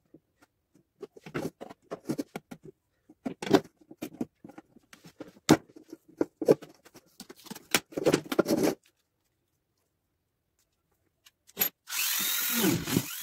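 A knife scraping and paper tape crinkling against a foil-covered tin, heard as short, irregular scrapes and taps. After a pause, a handheld rotary tool starts up near the end and runs steadily, grinding.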